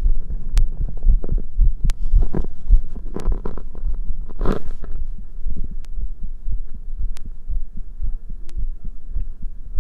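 Human heartbeat heard close up as a steady run of low thuds, with a rustling noise in the middle that swells about four and a half seconds in.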